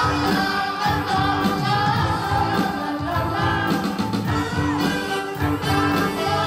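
Background song: a singing voice over a band with a steady beat.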